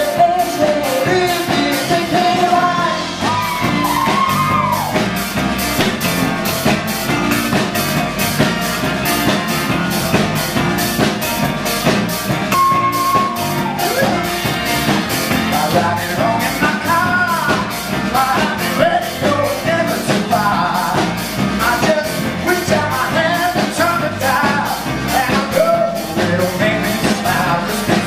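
Live pop-rock band music with a steady drum beat and a lead vocal sung over it.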